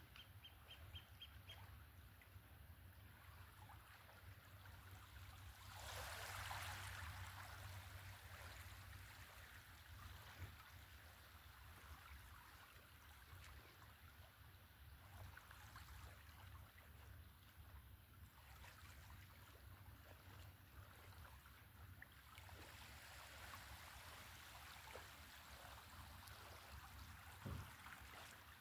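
Faint small waves lapping and trickling at the water's edge of a calm bay, with a louder wash about six seconds in and a low steady rumble underneath.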